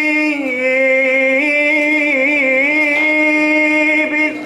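A man singing one long, drawn-out melismatic note in an Arabic devotional supplication. The pitch steps down about half a second in, wavers through ornamented turns in the middle, rises again about three seconds in, and breaks off near the end.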